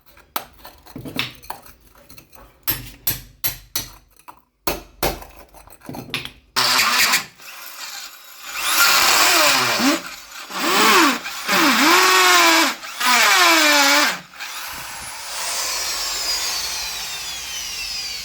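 Hammer blows striking concrete, quick irregular strikes for about six seconds. Then an electric drill runs in loud bursts, its pitch dipping and recovering as it bites into the concrete, and settles into a steadier run with a slowly falling whine near the end.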